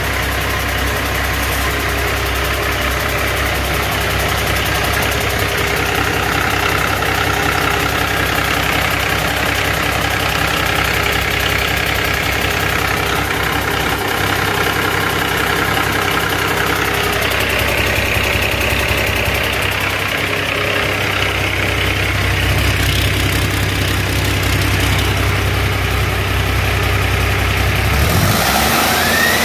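Cummins ISX 15-litre inline-six diesel engine running on a test stand at a steady idle. Near the end it begins to rev, with a quickly rising whine.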